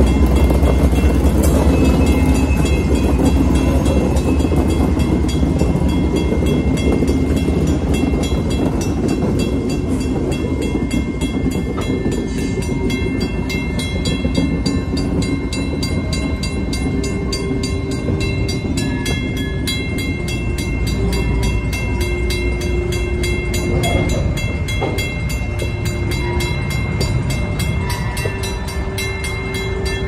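Empty coal train passing close by. The rumble of the trailing GE ET44AC (GEVO) diesel locomotive is loudest for the first several seconds as it goes by. Then the empty coal hoppers roll past with steady wheel-on-rail noise and rapid, regular clicking.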